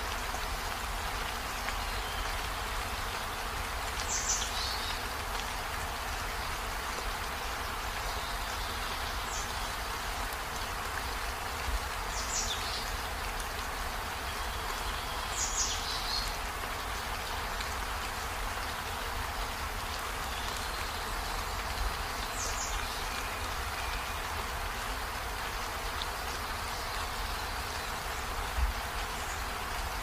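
Steady rain falling, an even hiss throughout, with a few brief high falling chirps now and then and a soft low bump near the end.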